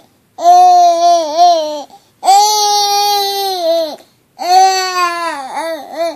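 Baby vocalizing: three long, loud, drawn-out calls, each about a second and a half, with short pauses between; the last one wavers and breaks near its end.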